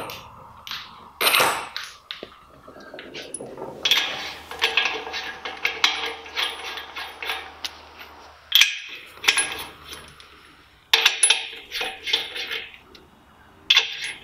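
Steel sleeve nuts clinking and rattling as they are handled and threaded by hand onto the studs of an aluminium truck wheel. The clinks come in several clusters, with a run of quick small ticks in the middle and a few sharper metal clinks.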